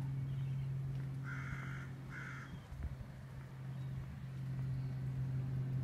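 Two harsh crow caws in quick succession, about a second and a half in, over the steady low hum of an idling vehicle engine.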